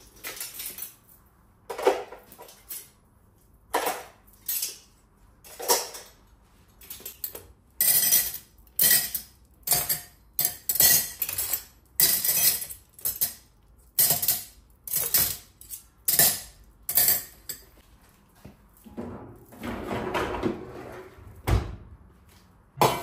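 Stainless steel cutlery clinking in a string of sharp clinks as spoons and forks are taken from a dishwasher cutlery basket and dropped into utensil holders. Near the end, a rattle and a single thud as the dishwasher is shut.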